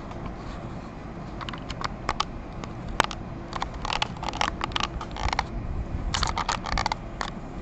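Irregular clicks from a computer mouse, single ones and quick runs with a dense cluster near the end, over a steady low hum.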